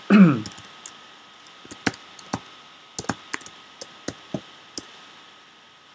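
Typing on a computer keyboard: about a dozen separate keystrokes at an uneven pace, after a brief voiced sound at the very start.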